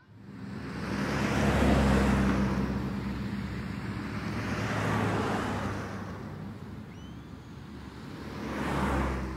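City street traffic: cars passing one after another, each swelling and fading with a low engine hum under the tyre noise, three passes in all, the loudest about two seconds in.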